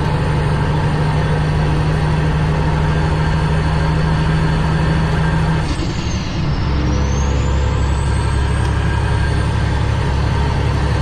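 Cummins ISX straight-six diesel of a Kenworth W900L, heard from the cab, pulling under load as the truck accelerates toward highway speed. About six seconds in the engine note breaks off briefly and picks up again at a lower pitch, as with a gear change, while a faint high whine drops and climbs back.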